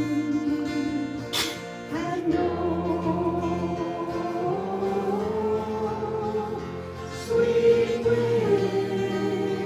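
Worship song: voices singing long, held notes that move stepwise in pitch, with guitar accompaniment.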